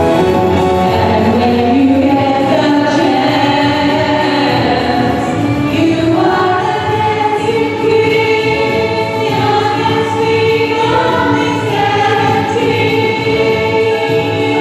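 Four women singing together in harmony through handheld microphones, holding long notes.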